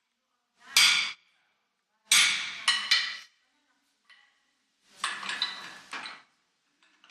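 Blacksmith's hammer striking iron on an anvil: a single blow, then a blow with two quick follow-up strikes, then two more blows a second apart, each with a brief metallic ring.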